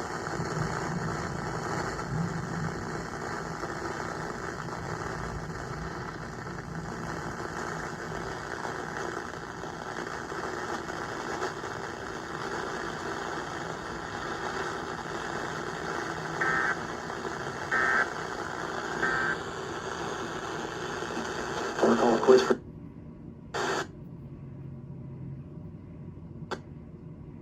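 Radio receiver hiss and static from a broadcast alert, then three short data bursts about a second apart, typical of an Emergency Alert System end-of-message code. A few seconds later comes a short loud burst, after which the audio drops to a faint, muffled hiss.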